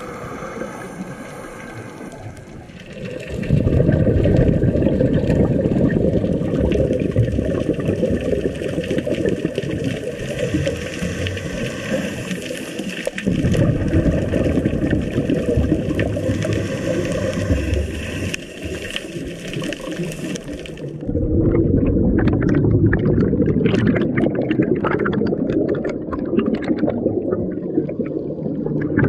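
Underwater rumble of moving water heard through a camera housing, dense and low, coming in long swells. Towards the end, streams of bubbles rush past with a crackling fizz.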